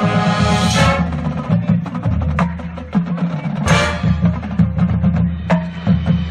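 High school marching band playing: quick, sharp percussion strikes over sustained low notes, with two bright crashes, about a second in and near four seconds in.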